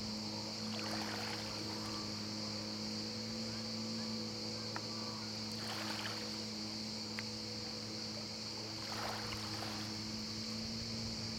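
Yamaha SuperJet SJ700 stand-up jet ski's two-stroke twin engine running at a steady pitch, with three short rushing hisses about 1, 6 and 9 seconds in.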